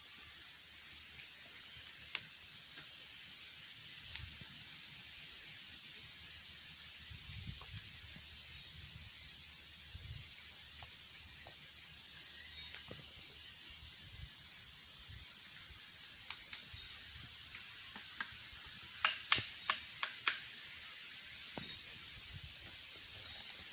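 Steady, high-pitched drone of an insect chorus, with a few light clicks about nineteen to twenty seconds in.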